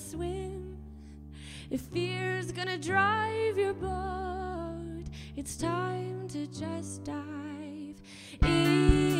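A woman singing a slow, tender melody with vibrato over sustained electric keyboard chords, pausing between phrases. Near the end the accompaniment turns suddenly louder and fuller.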